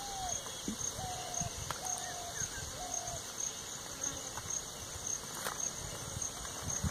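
Rural outdoor ambience dominated by an insect's high, pulsing trill repeating about twice a second, with four short, slightly falling whistled notes about a second apart in the first half. Low crackles and knocks from a wood fire being fed sticks sound underneath.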